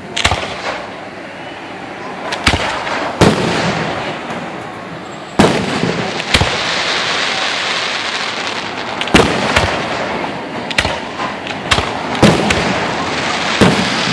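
Aerial firework shells bursting overhead: about a dozen sharp bangs at irregular intervals, with the background noise growing louder about five seconds in.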